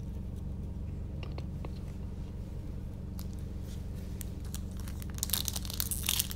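Foil wrapper of a Yu-Gi-Oh! OTS Tournament Pack crinkling and tearing as it is opened by hand, starting about five seconds in. Before that there are only a few light handling clicks over a steady low hum.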